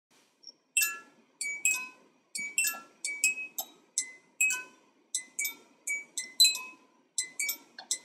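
Music box picking out a tune: bright metallic plucked notes at different pitches, several a second, each ringing briefly. The notes begin about a second in and pause briefly near the end.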